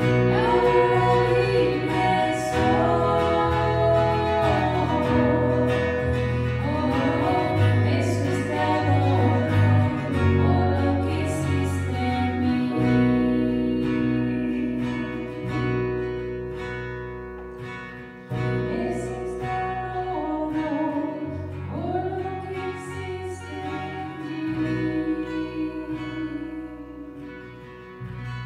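Live worship band playing a praise song: women singing into microphones over acoustic guitar, keyboard and electric guitar. The music softens near the end.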